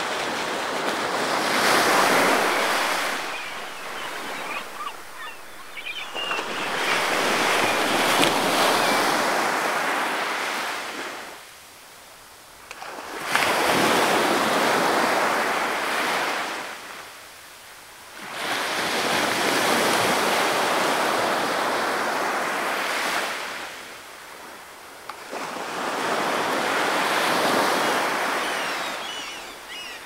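Small waves breaking and washing up a sandy shore, about five swells that each build for a few seconds and then fall away.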